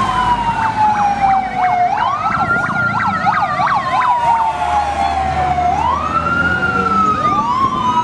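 Sirens of fire apparatus, more than one sounding together: slow wails rising and falling in pitch, with a fast yelp pattern over them about two to four seconds in.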